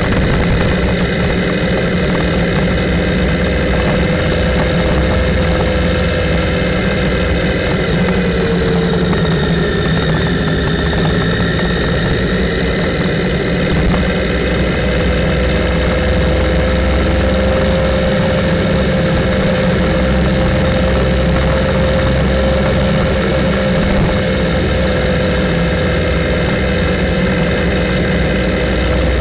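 Motorcycle engine running steadily while cruising. Its pitch dips slightly about eight seconds in, then rises back and holds steady.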